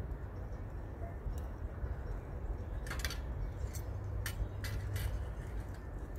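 Several short, light clinks of hard objects, about five of them in the second half, over a steady low rumble.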